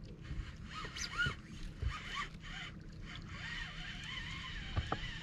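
Fishing reel winding in line against a hooked fish: a zipping, ratcheting whir with a few light knocks.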